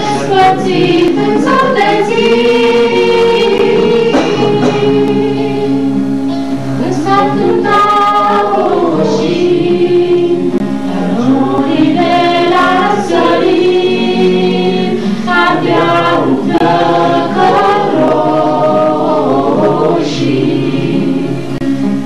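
A small group of men and women singing a Romanian mountain song together, with acoustic guitar accompaniment.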